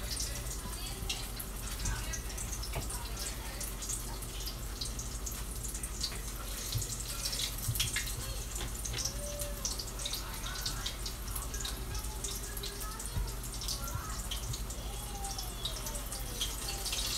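Hot oil sizzling in a frying pan, with a steady hiss and many small crackles, as egg-battered potato and cheese fritters fry.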